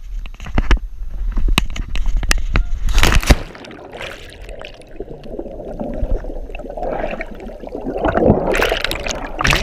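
Wind noise and a few knocks on a handheld action camera's microphone, then a loud splash about three seconds in as the cliff jumper plunges into the sea. Muffled underwater bubbling and gurgling follows, breaking into splashing near the end as the camera surfaces.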